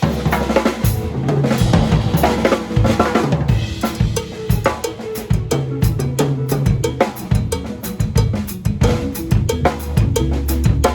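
Drum kit played hard in a busy groove, with kick drum, snare and rimshot hits; it comes in suddenly at the start.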